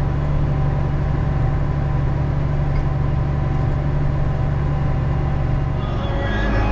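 Large tractor's diesel engine running steadily, heard from inside the cab, with a deep, steady drone; its note changes about six seconds in.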